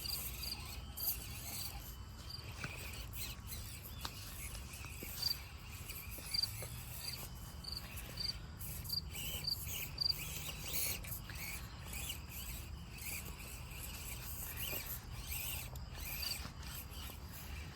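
Crickets chirping in an even, high-pitched pulse of about two chirps a second, fading out about halfway through, with scattered light clicks and crackles throughout.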